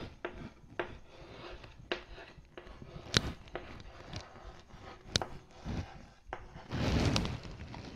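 Chalk writing on a blackboard: scattered sharp taps as the chalk strikes the board, with faint scratching between them and a longer rustling noise about seven seconds in.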